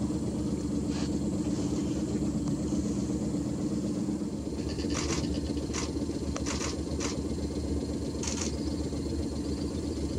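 Boat's outboard motor idling steadily, with a few short, sharp clicks in the second half.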